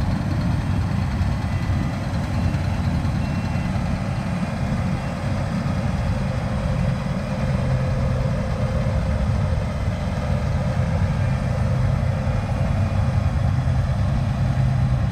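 Large diesel farm machine's engine running steadily, a continuous low drone that grows a little stronger about halfway through.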